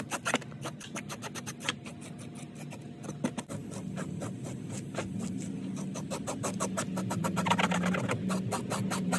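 A metal fish-scaling tool raked in quick, repeated strokes against a flounder's skin, several scrapes a second, as the scales are stripped off. A low steady hum joins it about four seconds in.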